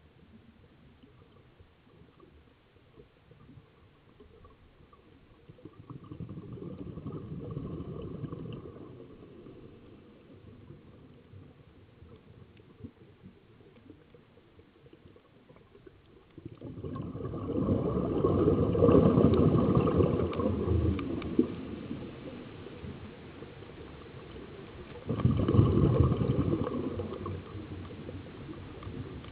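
Scuba diver's exhaled breath bubbling out of the regulator underwater, heard as a low bubbling rumble three times, several seconds apart, with quiet between breaths. The second and third are the loudest.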